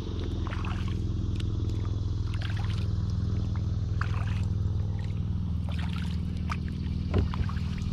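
Kayak paddling: water drips and trickles off the paddle blades in irregular bursts over a steady low hum, with a single louder knock near the end.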